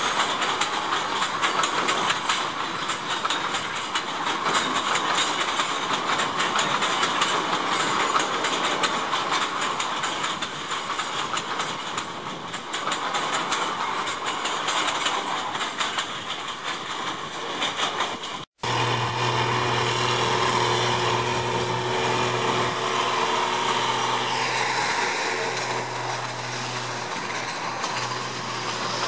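Empty peat wagons of a narrow-gauge industrial train rattling and clattering as they roll past over the rail joints, a dense run of clicks and knocks. After a cut about two-thirds in, a steadier train sound with a low hum and a faint wandering whine takes over.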